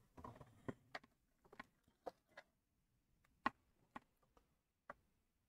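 Faint, scattered clicks and light knocks of power cables and crocodile-clip leads being handled and sorted on a workbench, the sharpest click about three and a half seconds in.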